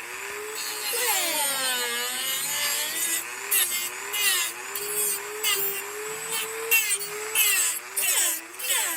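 Dremel rotary tool cutting into a pine block. Its motor whine wavers and sags in pitch as the bit loads up in the wood, with choppy rasping bursts of cutting in the second half.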